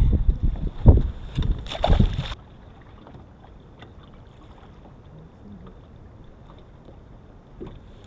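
Loud wind buffeting and handling rumble on the camera microphone, with a few sharp knocks, cutting off suddenly about two seconds in. After that, a faint steady background of wind and water around a small fishing boat, with light ticks.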